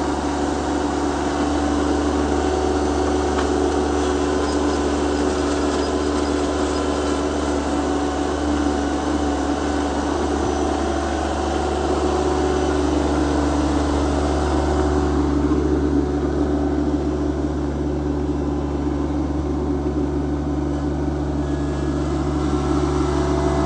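Yanmar compact tractor's diesel engine running steadily while its front loader lifts and carries a stack of small square hay bales. It sounds a little duller from about fifteen seconds in.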